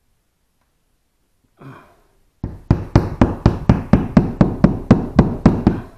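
Claw hammer tapping a plastic wall anchor into a wall, about fourteen quick, even blows at about four a second that start a little over two seconds in.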